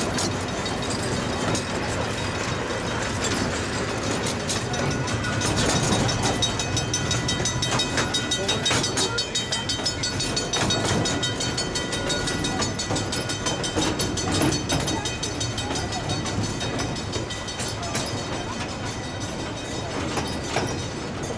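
A 15-inch gauge miniature train running, heard from on board: a steady rolling rumble of the cars on the rails, with frequent irregular clicks from the wheels over the track. It gets a little quieter near the end.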